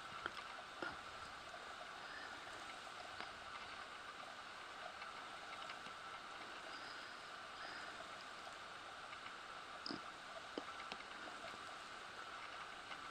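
Faint, steady outdoor background hiss with a few brief, faint high chirps and a few soft clicks.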